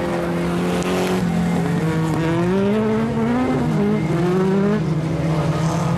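Several dirt-track race car engines revving as the cars lap, their overlapping notes climbing in pitch about two seconds in, peaking around three and a half seconds, then falling back.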